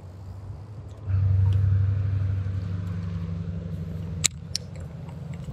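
Electric trolling motor starting about a second in and running with a steady low hum that eases slightly after it starts. Two sharp clicks near the end.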